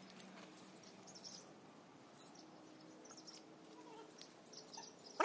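Faint wildlife ambience: scattered short, high chirps over a quiet background.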